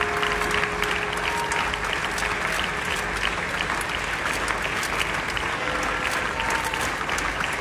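Large crowd applauding steadily: many hands clapping at once, with no break.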